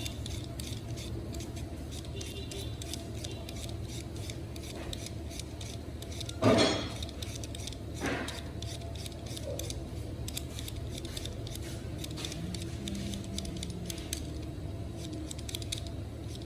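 Steady low hum with faint light clicks, broken by one loud clank about six and a half seconds in and a softer knock a second and a half later.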